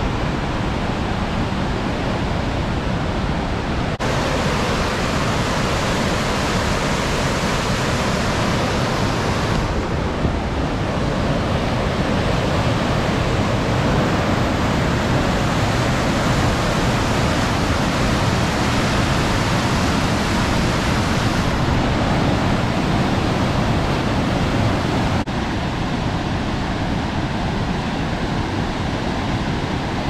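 River rapids and a wide, low waterfall rushing and pouring over rock ledges: a loud, steady rushing of white water that changes abruptly a few times in tone and strength.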